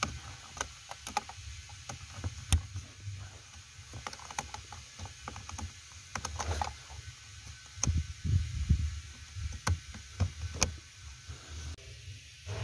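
Scattered sharp plastic clicks and knocks with rustling, as wiring connectors and harness are handled and pressed onto a Toyota Camry's A/C air-mix damper servo motor. The clicks come thickest in the second half.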